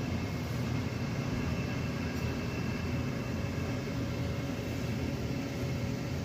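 Steady low hum and rumble of supermarket background noise: open refrigerated display cases and air handling, with a couple of faint steady tones over it.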